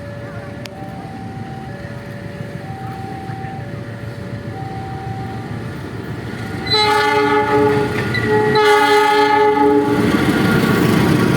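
A two-note tone alternates steadily. Then, about halfway through, the CC206 diesel-electric locomotive sounds its multi-chime air horn in two blasts, the first about two seconds long and the second shorter. Near the end the train's rumble and rail noise swell as it passes.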